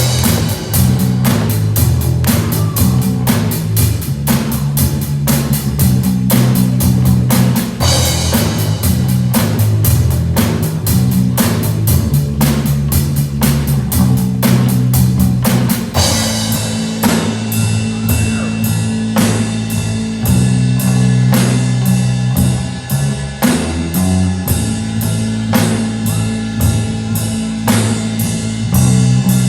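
Rock music with a drum kit keeping a steady driving beat over guitar and a sustained bass line; the sound changes about halfway through, with the drumming growing denser.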